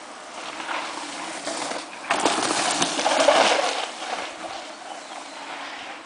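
Mountain bike riding by on a dry, leaf-covered dirt trail: tyres crackling and rustling through the leaves, building to a loud pass about two to four seconds in, then fading as the bike moves away.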